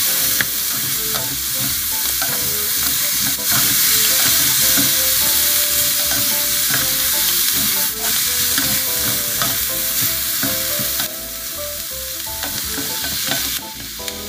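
Seafood and sliced vegetables sizzling in hot oil in a cast-iron skillet, stirred and tossed with spatulas that knock and scrape against the pan. The sizzle eases a little near the end.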